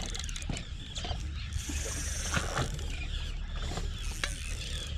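Spinning reel cranked to retrieve a jig after a cast, its gears and bail giving a run of light mechanical clicks and ticks, over a steady low background noise.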